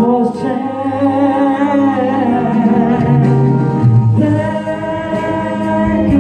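Gospel song sung by a church choir, with long held notes and a short break about four seconds in before the singing resumes.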